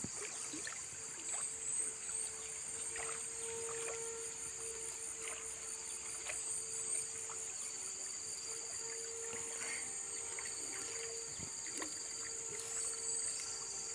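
River water flowing under a steady, high-pitched insect chorus that pulses in a quick, even rhythm, with a faint low hum running alongside.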